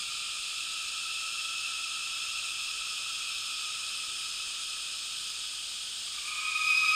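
Cicada song as a steady high buzzing drone. About six seconds in, a louder sustained tone swells in over it.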